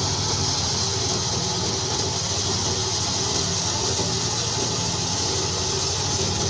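Wheat thresher machine running steadily: a constant low engine drone with a continuous high rushing hiss over it.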